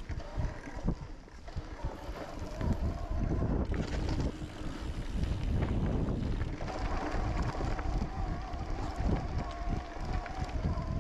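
Mountain bike ridden over a rocky trail: wind buffets the microphone while the tyres and bike clatter over rocks. A steady whine joins in about two-thirds of the way through.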